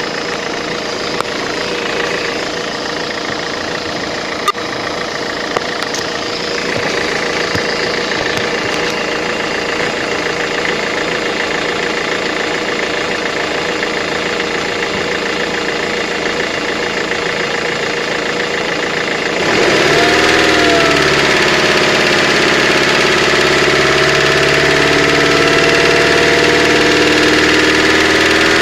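Mercedes-Benz Vito engine idling with a steady, rapid knock. The owner has found the crankshaft and bearings like new under the oil pan and suspects an injector or a hydraulic lifter. About two-thirds of the way through, the sound gets louder and its tone shifts.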